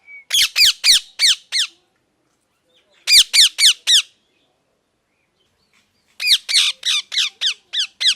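A parrot squawking loudly in three quick bouts of harsh, repeated calls, each call dropping in pitch, with a few seconds' pause between bouts.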